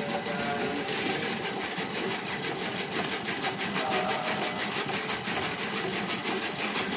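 Electric chaff cutter, a fodder-chopping machine with a flywheel and blades, running steadily with a rapid, even clatter.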